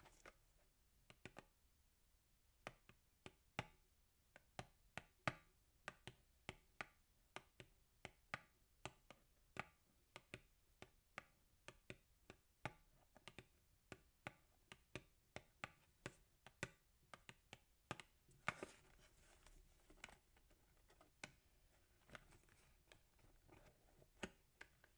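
Long gel-polished fingernails tapping on a cardboard cake box: crisp clicks about two or three a second, with a brief stretch of nails scratching across the box a little past halfway.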